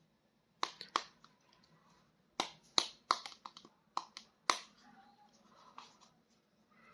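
Sharp clicks and taps from handling a toy action figure and its packaging, about a dozen of them at irregular spacing, most in the first two-thirds.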